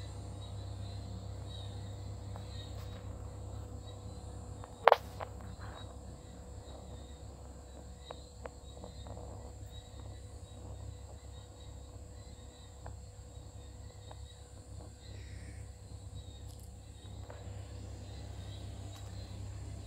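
Night ambience: a steady high chirring of insects over a low continuous hum, with one sharp click about five seconds in and a few faint ticks after it.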